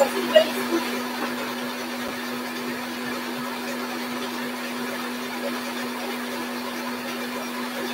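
Electric stand mixer running steadily with its whisk attachment, a constant motor hum under an even whirr as it whips egg whites toward soft-to-mid peaks. A few light knocks come in the first second.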